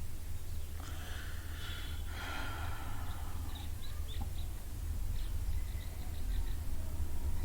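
Background ambience: a steady low rumble, two brief rushing noises about one and two seconds in, then a string of short high chirps.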